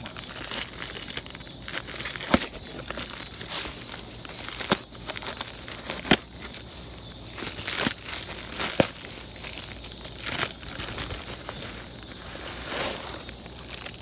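Plastic courier mailer crinkling and rustling as it is handled and opened by hand, with scattered sharp crackles every second or two.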